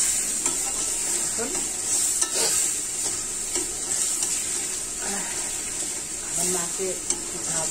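Onion, garlic and tomato masala sizzling in a steel karahi as a spatula stirs and scrapes through it, with a few sharp clicks of the spatula against the pan. The masala is being bhuna-fried down before the fish goes in.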